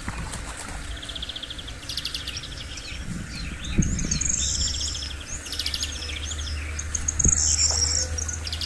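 Small birds chirping and trilling repeatedly, with rustling and a thump from handling soil and plants about four seconds in and again near the end.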